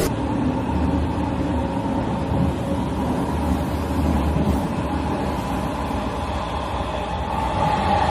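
Metro train running, its steady noise heard from inside the passenger carriage.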